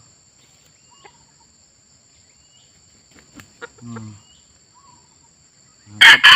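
Red junglefowl rooster crowing loudly and close near the end, a hoarse crow, over a steady high drone of forest insects. Before it there are only a few faint short chirps and one low call from the fowl.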